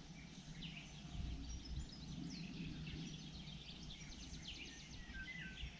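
Faint songbirds chirping, a busy scatter of short notes and quick falling whistles, over a low steady rumble.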